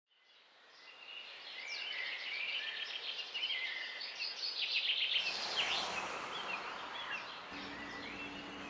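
Small birds chirping and trilling, fading in from silence. About five seconds in, a steady background hiss rises under them, and a faint low hum joins near the end.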